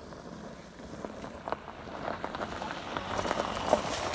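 Scattered light clicks and crackling over a hiss, growing denser and louder through the second half: handling noise from working on a steel tent frame on gravel.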